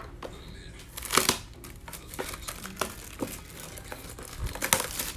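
Plastic wrapping crinkling and tearing as a trading card blaster box and its packs are opened, with louder rips about a second in and again near the end.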